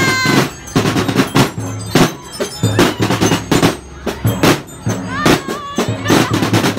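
Marching drum band playing a fast, dense beat of many drum strikes over a steady low bass-drum pulse. A high excited shriek rises near the start, and another short shout comes about five seconds in.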